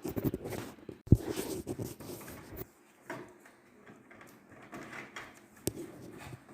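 Handling noise from fitting a replacement timer into a semi-automatic washing machine: plastic parts clattering and rattling, with a sharp knock about a second in and a single sharp click near the end.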